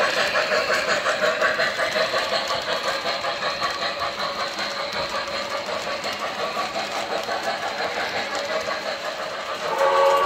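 MTH RailKing O-gauge model Commodore Vanderbilt train running past with a rapid rhythmic clatter. Near the end its sound system sounds a multi-tone steam whistle.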